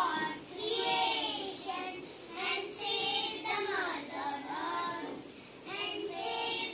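Young girls' voices singing together in short phrases into a microphone.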